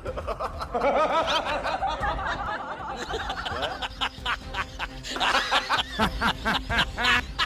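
Laughter over background music; from about three seconds in, the laughter comes in quick repeated bursts, several a second.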